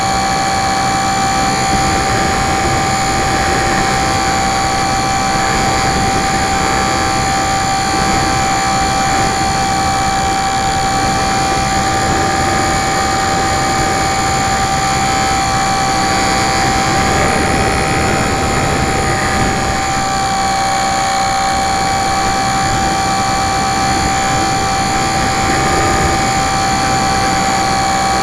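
Electric motor and propeller of a HobbyZone Super Cub LP radio-controlled model plane in cruising flight, heard from its onboard camera: a loud steady whine with a constant high tone over wind rush, the pitch wavering slightly about two-thirds of the way through.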